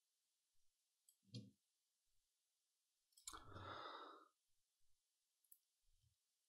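Near silence, broken by one faint breath out, close to the microphone, about three seconds in, and a few faint clicks.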